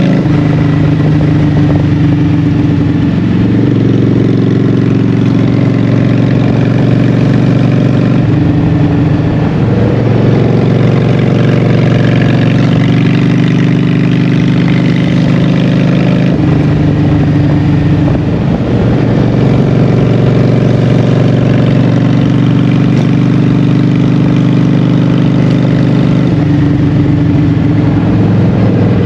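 Honda Shadow 750's V-twin engine running through Vance & Hines Short Shots exhaust pipes while riding. The exhaust note steps to a new pitch several times as the engine speed changes.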